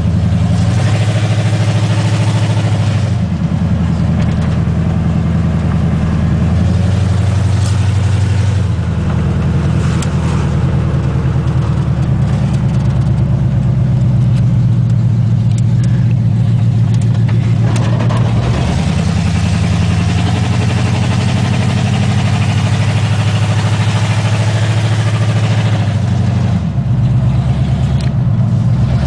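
Chevy pickup engine running loud through open headers while driving, heard from inside the cab. The exhaust note rises and falls several times as the throttle changes.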